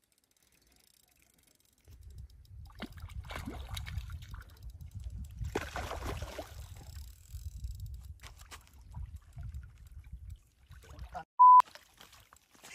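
Wind rumbling on the microphone with water splashing and sloshing from a hooked carp at the bank. Near the end, a short, loud, single-pitch censor bleep covers a swear word.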